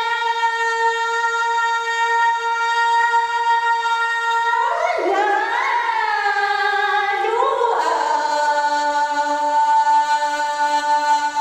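A single voice singing unaccompanied. It holds one long note for about four and a half seconds, slides through a few notes, then holds a lower note.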